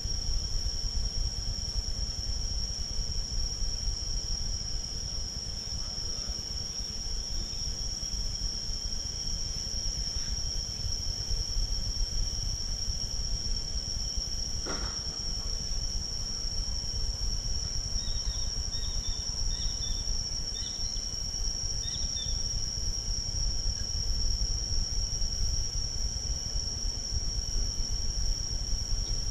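Steady, high-pitched insect drone over a low outdoor rumble, with a few faint bird chirps about two-thirds of the way through.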